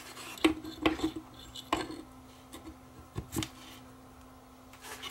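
A woofer's metal frame being fitted into a wooden speaker cabinet, making scattered light clicks and knocks, about half a dozen over several seconds.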